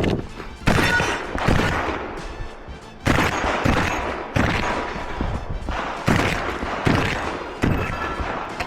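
Shotgun fired repeatedly during a competition stage, about seven shots at uneven intervals of roughly one to one and a half seconds, each ringing out briefly.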